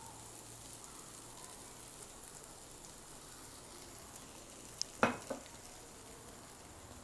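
Onions and mushrooms sizzling quietly in a frying pan while being stirred with a wooden spatula. A couple of sharp knocks come about five seconds in.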